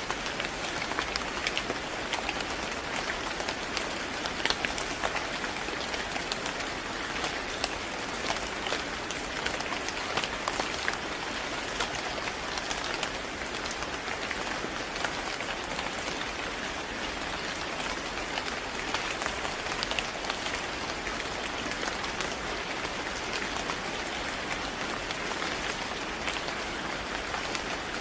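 Steady rain falling on a hard surface, an even hiss with many distinct drop taps scattered through it.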